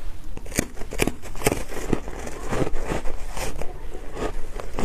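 Ice coated in matcha powder being bitten and chewed: a run of sharp, irregular crunches.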